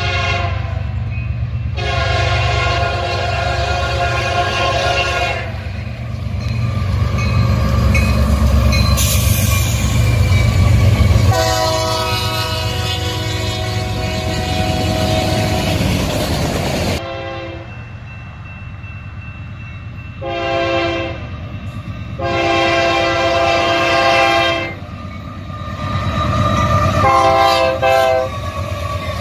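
Diesel freight locomotive's air horn led by an EMD SD70AH sounding for a grade crossing: two long blasts, a short one, a long one and a final short one, over the low rumble of the passing locomotives and rail cars, which swells between the first two blasts.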